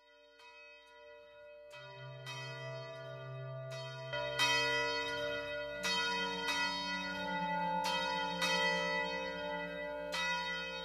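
Bells struck again and again at several pitches, their rings overlapping and hanging on, over a low steady hum. The sound swells from faint to full over the first four seconds.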